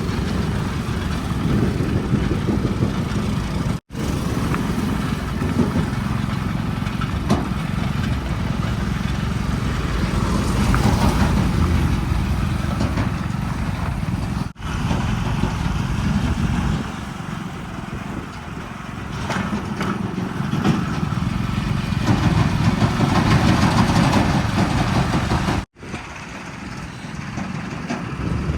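Heavy diesel engine of a tractor or backhoe loader running steadily, with the sound breaking off for an instant three times.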